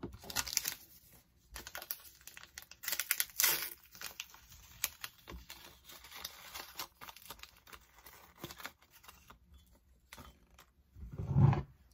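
Paper tea bag sachet being torn open and crinkled by hand, with scattered rustles and small clicks. A short, deeper thud near the end.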